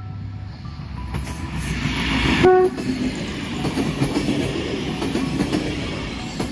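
Two-car SKPL railcar train passing close by: a short horn blast about two and a half seconds in, then the rumble and clickety-clack of its wheels over the rail joints as the cars go by.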